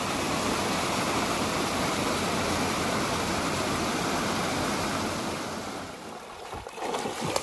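Water rushing steadily over a small stone weir, fading away about six seconds in. Near the end come a few light splashes as a dog wades through a shallow stream.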